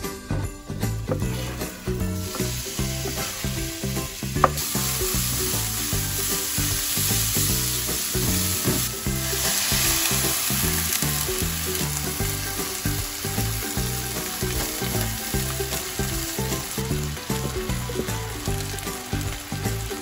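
Chopped onion and apple sizzling as they fry in a nonstick wok. The sizzle swells after a sharp clack about four and a half seconds in and runs on as liquid is added, with faint rhythmic background music underneath.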